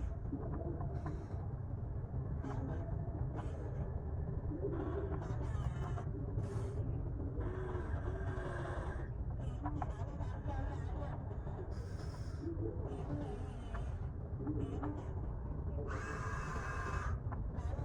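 Small electric motors and gearboxes of RC construction machines whining in short bursts over a steady low rumble; one of the longest bursts comes near the end.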